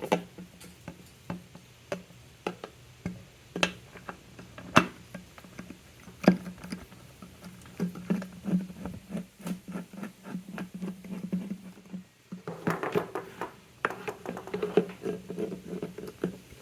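Metal hand tools clicking and clinking against a nut inside a scooter's fuel tank as a 17 mm tool is tried on it. The clicks are sharp and scattered at first, then come quicker and closer together for a few seconds, stop briefly, and come quick again.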